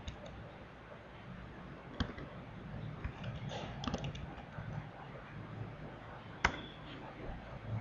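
Computer keyboard keys pressed slowly, a few scattered clicks with a small cluster a few seconds in, then one sharper keystroke near the end as the command is entered. A faint low hum runs underneath.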